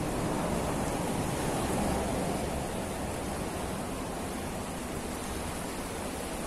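River water rushing and churning over shallow rapids: a steady noise with no breaks.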